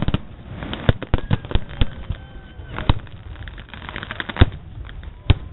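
Fireworks and firecrackers going off in an irregular string of sharp bangs and crackling, with five or so louder bangs standing out about a second apart.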